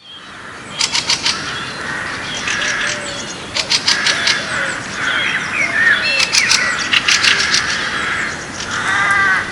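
Many birds chirping and calling together, with clusters of rapid, sharp chip notes about a second in, around four seconds and again around six to seven seconds. A harsher call near the end.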